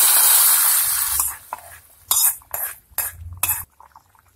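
Fenugreek seeds fried in hot coconut oil tipped from a kadai into boiling rice in a pressure cooker: a loud sizzling hiss for about a second and a half, then a metal spoon scraping and clinking against the pans as the seasoning is stirred in.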